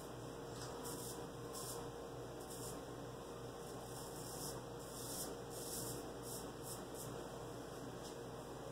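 Faint, short scrapes of a straight razor (a 7/8 George & Sons, 1830s Sheffield) cutting through lathered stubble, the blade's audible "feedback", in irregular strokes over a steady low hum.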